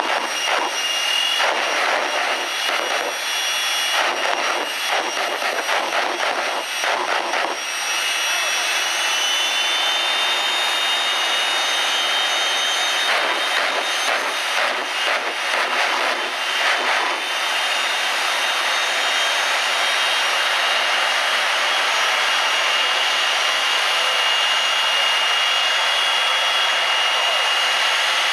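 Turbine jet engine of a jet-powered drag racing car running, a loud rushing hiss with a high steady whine. The whine climbs a little in pitch about ten seconds in. The rush flutters unevenly through the first half, then settles into a smooth, even run.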